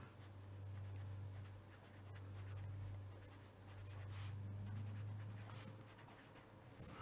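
Fine felt-tip pen writing on paper: faint scratching strokes in three short runs, over a steady low hum.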